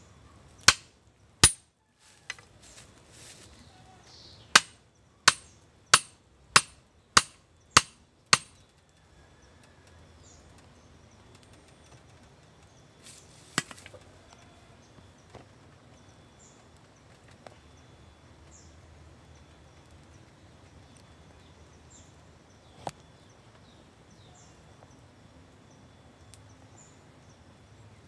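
A run of sharp chopping blows, about one every two-thirds of a second, stopping about eight seconds in. After that come two single knocks and faint bird chirps.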